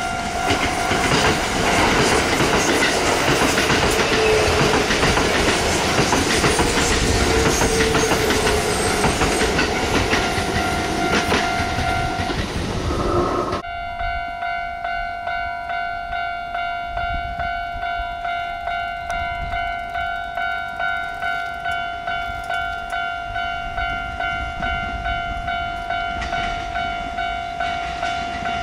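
A Kintetsu train passing over a level crossing, its wheels clacking on the rail joints, while the crossing bell rings. About halfway through, the train noise cuts off suddenly, leaving the crossing bell ringing on its own in a steady, fast repeating clang, about two strokes a second.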